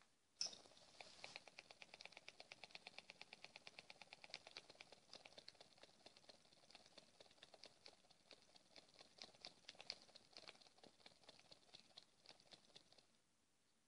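Faint rapid, even ticking from a mini all-free-piston Stirling engine running on a tealight, about five or six light clicks a second. It starts with a sharper click and stops about thirteen seconds in.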